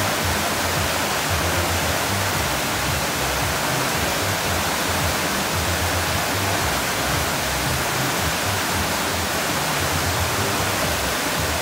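Steady rush of water pouring down a water slide and splashing out into its landing pool.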